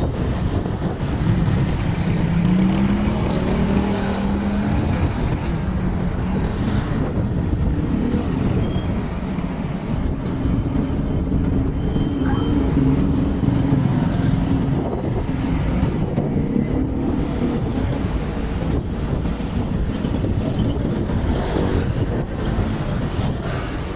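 Road traffic heard from a bicycle riding beside it: cars and motorbikes running close alongside, a steady engine and tyre rumble with engine tones rising and falling as vehicles pass.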